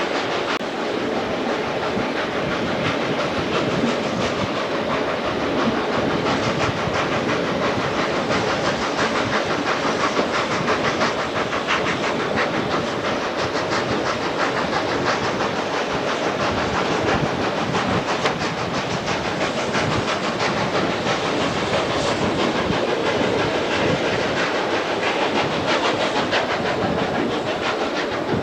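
Steam-hauled passenger train running, heard from a carriage window: a steady clatter of wheels over rail joints and rattling carriages, with a hiss of steam from the train's locomotive, ex-South Australian Railways 4-8-4 No. 520.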